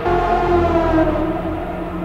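Background music: a sustained, slowly wavering chord.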